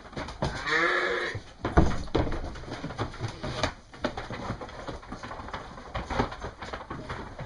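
A ewe bleats once, a wavering call of under a second starting about half a second in. Scattered knocks and shuffling follow as the penned sheep move about.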